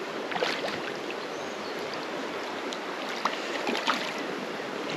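Shallow creek water running steadily, with a few small splashes and clicks scattered through it.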